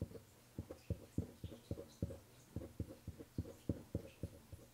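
Faint, soft taps of a paintbrush dabbing oil paint and cold wax onto a painting panel, about three or four a second at an uneven pace.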